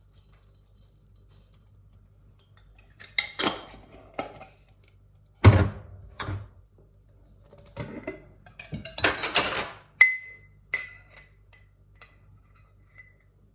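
Kitchen utensils and containers knocking and clinking while spices are measured into a bowl: a short rustling hiss at the start, then scattered knocks and clatters, the loudest about five and a half seconds in, and a clink that rings briefly about ten seconds in.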